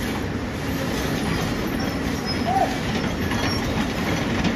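A Hyundai crawler excavator's diesel engine runs steadily under load while the machine digs, with a short squeal a little past halfway.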